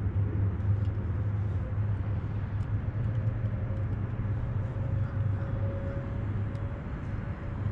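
Steady low rumble of road traffic, with a faint hum that comes in about three seconds in and rises slightly in pitch.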